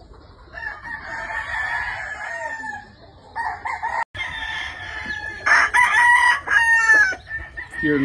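Gamefowl roosters crowing: several long crows one after another, with two or more roosters crowing over each other in the second half.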